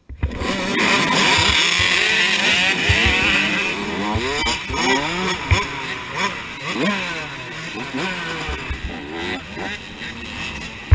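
A pack of dirt bikes revving hard and pulling away off a race start, several engines rising and falling in pitch as they shift, among them the rider's own big-bore KTM 85 SX two-stroke, with scattered low thumps from bumps and wind on the helmet camera. The sound cuts in abruptly and is loudest in the first few seconds.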